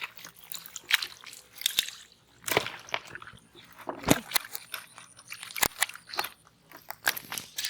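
Hands groping through wet mud and shallow water, a run of irregular squelches, wet smacks and crackles.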